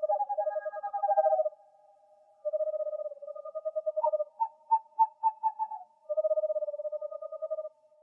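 Owl calling in rapid trills of short, evenly pulsed hoots, in runs of about a second and a half with short pauses between. A second, higher series overlaps at first, and a slightly falling series of notes comes about halfway through.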